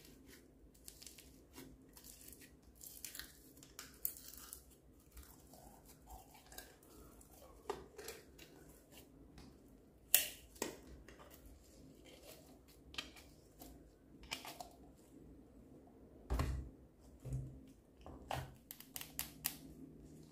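Fingers pressing into and pulling red slime topped with foam beads out of a plastic jar: irregular crackling, squishing and sticky tearing sounds. A sharp snap about halfway through is the loudest sound, and a dull thump comes later as a plastic container is handled.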